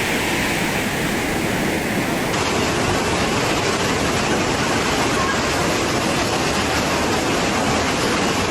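Loud, steady rushing of fast-flowing floodwater. The rush changes slightly about two seconds in.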